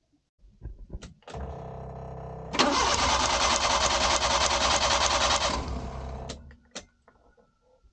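Suzuki F6A three-cylinder engine cranked on its starter for about three seconds without catching, then winding down as the key is released: the crank-but-won't-start fault. A steady hum comes just before the cranking.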